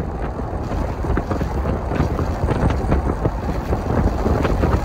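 Strong wind buffeting the microphone, a steady, heavy low rumble with irregular flutter.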